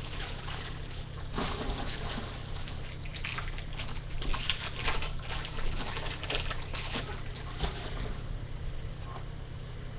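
Plastic wrapper of a 2015 Bowman baseball card pack crinkling and tearing as it is opened by hand, with the cards rustling as they come out. The irregular crackle dies down near the end.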